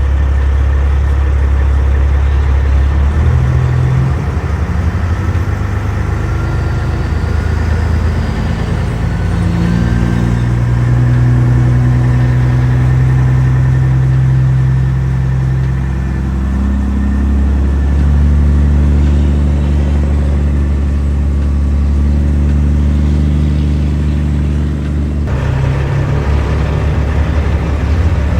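Semi truck's diesel engine running under way, its pitch stepping up and down several times as it works through the gears, with a faint rising whine over it.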